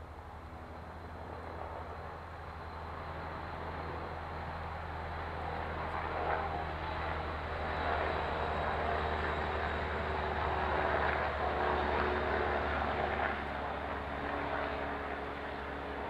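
A distant engine drone that swells gradually for about ten seconds, then eases a little near the end.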